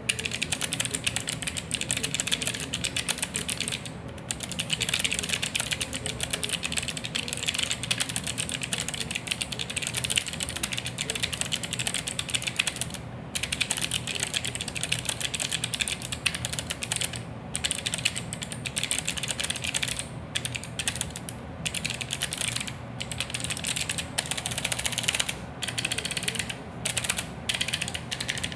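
Rapid typing on a mechanical keyboard: a dense, fast clatter of keystrokes, broken by several short pauses.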